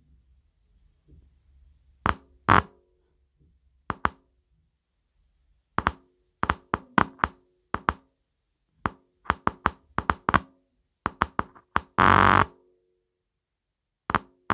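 Woofer from a Sony SS-DX3 speaker giving an irregular string of sharp clicks and knocks as it is worked to show that it still works, with a louder crackling burst of about half a second near the end.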